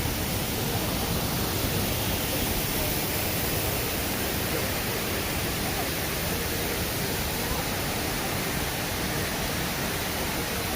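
Steady rush of water from Shiraito Falls and its stream, an even, unbroken hiss with no change in level.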